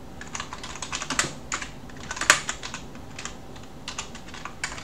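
Typing on a computer keyboard: irregular keystrokes in short runs, with one louder stroke a little over two seconds in.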